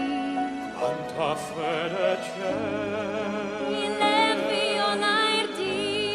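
Operatic singing with wide vibrato over a sustained instrumental accompaniment.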